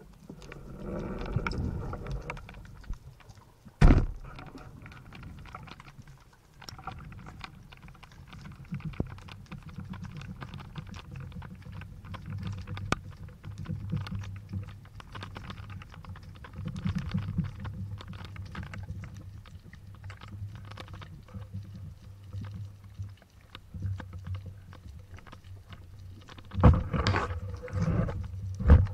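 Underwater sound picked up by a camera mounted on a speargun: a low water rumble with scattered faint clicks and crackle. There is one sharp knock about four seconds in, and louder knocks and rumbling near the end.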